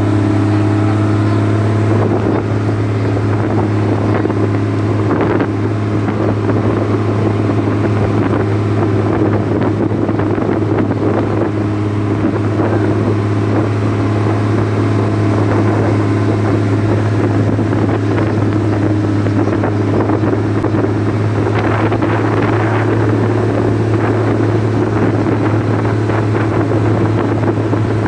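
Engine of a motorised outrigger fishing boat running steadily underway, a constant low drone, with wind and rushing water mixed in.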